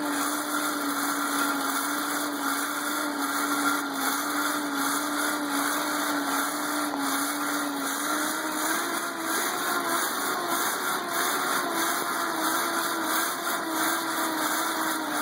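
Hand-cranked forge blower whirring steadily as it is turned, blowing air into the forge fire to heat the bar. Its pitch rises a little about halfway through as the cranking speeds up.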